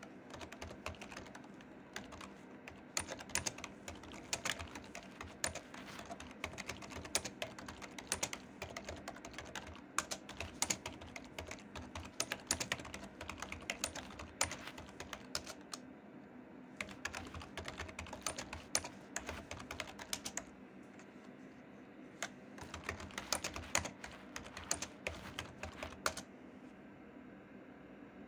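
Typing on a computer keyboard, quick runs of keystrokes broken by a few short pauses.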